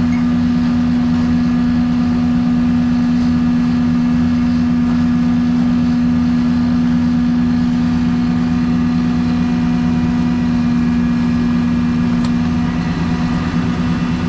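A vehicle's steady mechanical drone held at one constant pitch. It cuts off abruptly at the very end.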